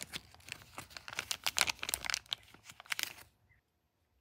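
Rapid crinkling and crackling of something being handled, stopping about three seconds in.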